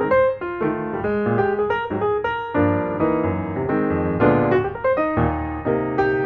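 Background piano music: notes struck and decaying in a steady flow.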